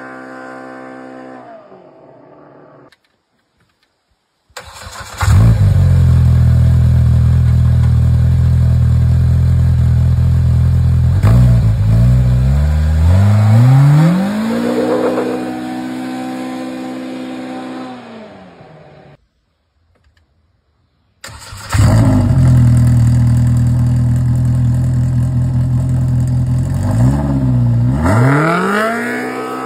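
Polaris RZR Pro R side-by-side's four-cylinder engine in an exhaust comparison, in three clips parted by short silences. First a run fading as the machine drives away. Then the stock muffler idling, revving and accelerating away, and near the end the GGB chambered sport muffler idling and revving up the same way.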